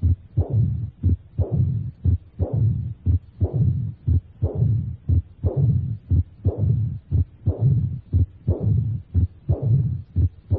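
Stethoscope recording of heart sounds at the cardiac apex in severe aortic regurgitation, about one beat a second. A low diastolic rumble, the Austin Flint murmur that mimics mitral stenosis, is heard together with a faint early diastolic murmur.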